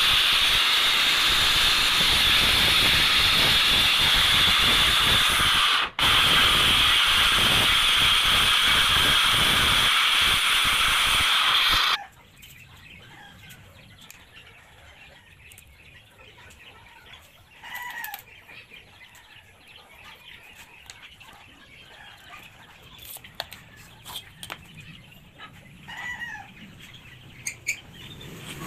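Makita circular saw running and cutting through film-faced plywood, a steady loud whine with a brief break near the middle, then it stops suddenly. After that it is quiet, with a few faint bird chirps and small clicks.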